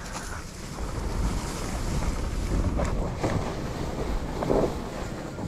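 Wind buffeting the microphone over the low rumble of a trail motorcycle on a dirt track, with a few short knocks from about three seconds in.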